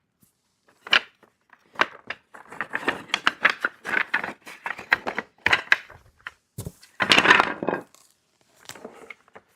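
Loose cedar beehive kit pieces being scooped out of their box and set aside: a run of wooden clicks, knocks and clatters, with a louder, longer scraping burst about seven seconds in.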